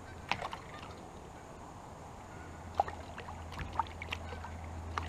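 A hooked largemouth bass splashing at the water's surface beside a kayak as it is brought in: sharp splashes and knocks, one near the start and a cluster about three to four seconds in, over a steady low hum.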